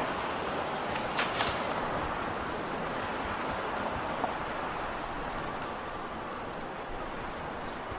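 Big-city street ambience: a steady wash of traffic noise, with a couple of brief sharp clatters a little over a second in.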